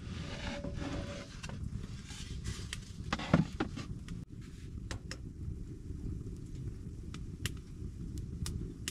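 Wood fire crackling with scattered sharp pops over a steady low rumble, and a louder knock about three seconds in.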